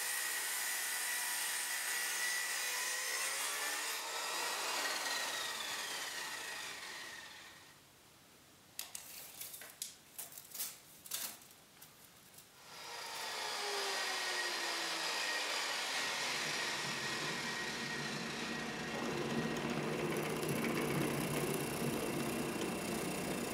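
Electric power tool running on wood. It winds down about six seconds in, and a few seconds of clicks and knocks follow. It then starts up again and runs steadily.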